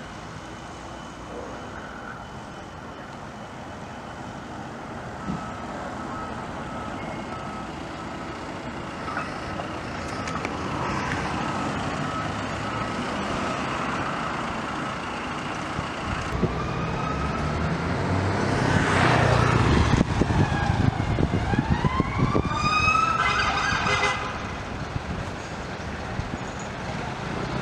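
Emergency vehicles approaching and passing on a road. A siren sounds in rising and falling sweeps, and the engine of a heavy vehicle grows loud as it passes close, about two-thirds of the way through.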